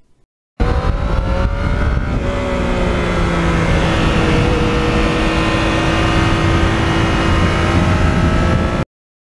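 Yamaha MT-09's three-cylinder engine running under way, with a steady rushing noise underneath. The engine note sags slightly, changes about two seconds in, then holds steady until it cuts off suddenly near the end.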